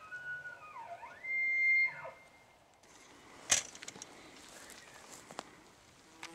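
Bull elk bugling: a whistled call slides up, dips low, then holds high and loud before breaking off into deep grunting chuckles about two seconds in. A single sharp click comes about a second and a half later.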